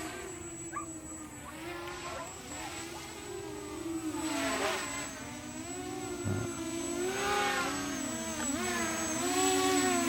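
Brushless quadcopter's motors and propellers buzzing like a bee in flight, the pitch rising and falling as the throttle changes.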